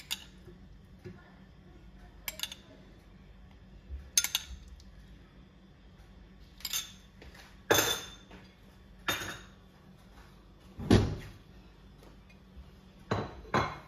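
Metal spoon clinking against a ceramic serving bowl, about nine separate clinks as cream is spooned over the curry, with one heavier knock about eleven seconds in.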